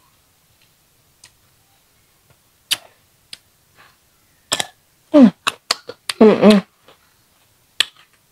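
Crisp crunching of bites into salted young ambarella fruit, as sharp separate clicks. Short hummed vocal sounds come about five and six seconds in.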